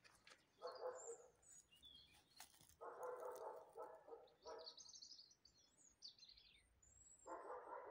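Faint songbird chirps and trills, with a dog barking in short bursts several times, the last near the end.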